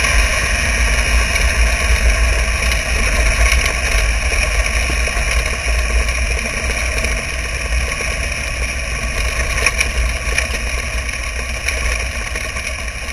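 Wingless sprint car's engine running steadily on a dirt oval, heard from the car's own onboard camera, with a heavy low rumble of wind on the microphone. It eases off a little toward the end.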